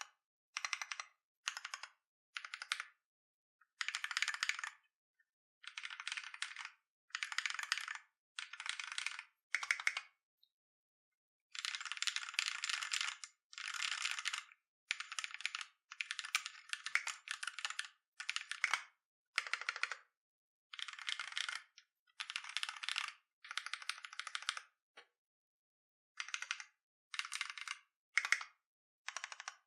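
Custom KBDFans Tofu mechanical keyboard with Holy GSUS tactile switches and Tai Hao Avatar III keycaps being typed on in bursts of fast keystrokes, with short pauses between bursts. The longest pause comes about ten seconds in.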